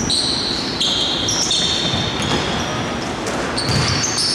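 Basketball shoes squeaking on a wooden court, many short high squeaks overlapping one another, with a basketball bouncing.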